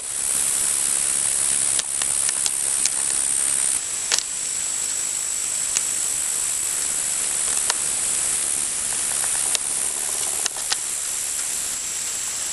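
Light rain falling: a steady hiss with scattered drops ticking sharply, about a dozen times.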